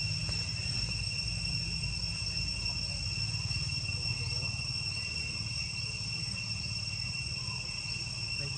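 Insects droning steadily, a continuous high-pitched whine that holds the same pitch throughout, over a low rumble.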